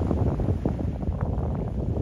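Wind buffeting the microphone: a loud, uneven, fluttering low rumble.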